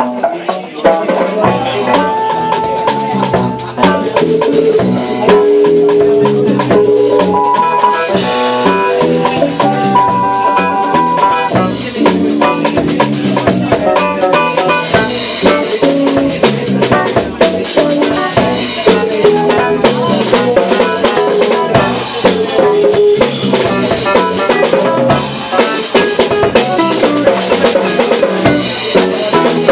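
Live band playing an original tune: drum kit with snare and bass drum keeping a steady beat under keyboard and electric guitars, with held melody notes over the rhythm.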